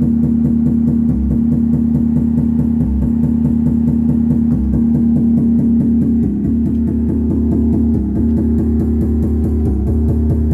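Music with a steady beat and heavy bass, played through a mixer, amplifier and loudspeakers; dull, with little treble.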